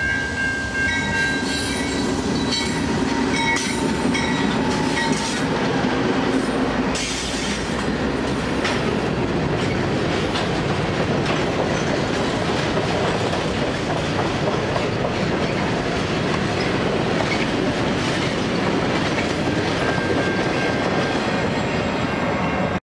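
CN diesel freight train passing close: the locomotives' engines running by, then covered hopper cars rolling past with the clickety-clack of wheels over rail joints. Several steady high-pitched tones sound over the first five seconds or so, and the sound cuts off suddenly at the end.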